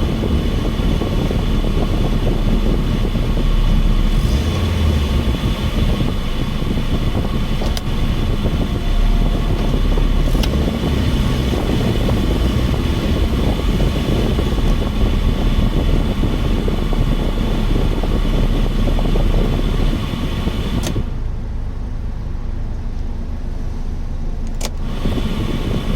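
Subaru Vivio's small four-cylinder engine and leaking exhaust running loud and steady at motorway speed, with road noise. The sound goes dull for a few seconds near the end.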